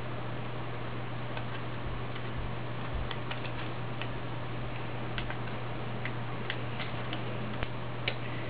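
Faint, irregular clicks and taps of a plastic LEGO minifigure and a paper coat being handled, over a steady low hum and hiss.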